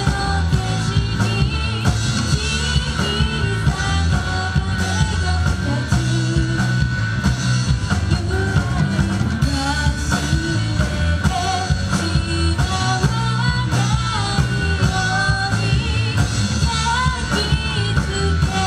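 Live rock-pop band playing: a woman sings the melody over a drum kit, electric bass, electric guitar and acoustic guitar.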